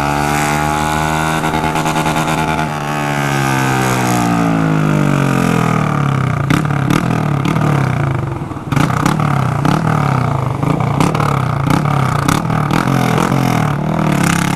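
A 160 cc motorcycle with a bare straight-pipe exhaust and no muffler, running loud while being ridden. The revs rise for the first couple of seconds, then fall away. From about six seconds on, sharp cracks and pops from the open pipe come through the engine note.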